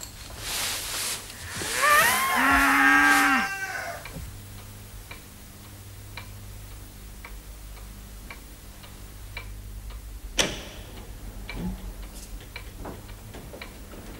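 A cow moos once, a long held call about two seconds in. Then a clock ticks steadily, about twice a second, with one sharp knock about ten seconds in.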